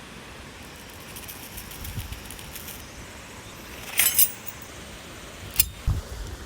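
Light clinking of small hard objects being handled: faint clinks, then two louder clinks about four seconds in and a single sharp click about a second and a half later.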